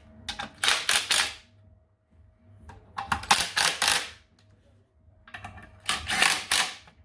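Impact wrench hammering in three short bursts of about a second each, running down the clutch pressure plate bolts onto the flywheel.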